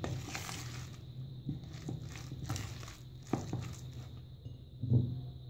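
A spoon stirring thick, wet pakora batter of chicken and chopped vegetables in a plastic bowl: squelching, with irregular knocks of the spoon against the bowl, the loudest near the end.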